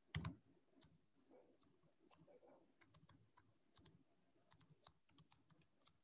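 Faint, irregular keystrokes on a computer keyboard as a word is typed, with a slightly louder couple of taps at the start.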